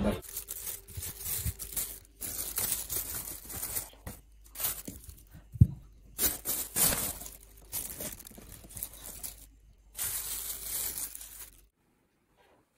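Plastic shopping bags rustling and crinkling in repeated bursts as groceries are handled, with one sharp knock about halfway through. The rustling stops shortly before the end.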